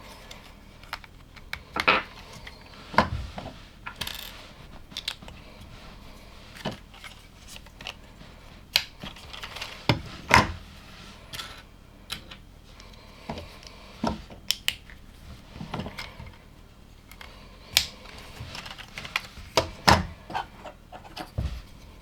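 Plastic LEGO pieces being handled and clicked together, with irregular sharp clicks and small clatters.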